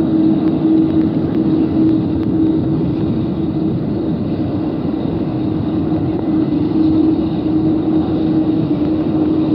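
Jet airliner engines running on the airfield: a steady rumble with a constant hum that holds throughout.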